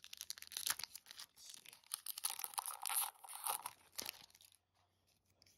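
Foil trading-card booster pack being torn open and its wrapper crinkling as the cards are pulled out: a dense run of sharp crackles that stops about four seconds in.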